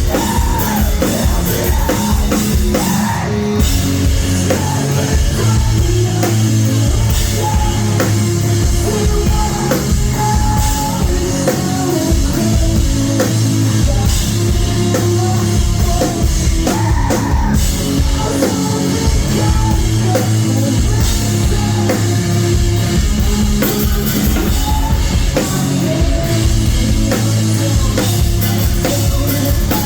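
Rock band playing live at full volume, with the drum kit driving a steady beat under the rest of the band, recorded loud from the crowd on a phone.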